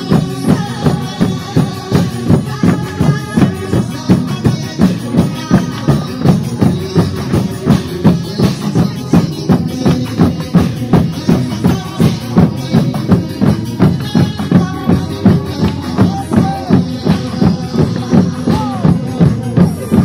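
Upbeat dance music with a strong, steady drum beat, about two beats a second.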